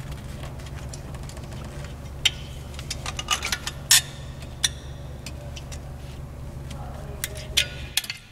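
Oil catch cans being unhooked by hand: a run of sharp metal clicks and clinks as the quick-disconnect fittings are released and the cans are handled. The clicks come in clusters around the middle and again near the end, over a steady low hum.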